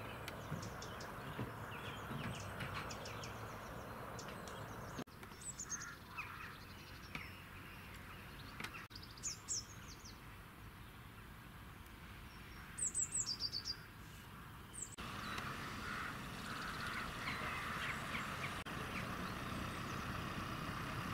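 Small birds chirping and calling now and then, short high notes over a steady background hiss of outdoor ambience, which changes abruptly twice.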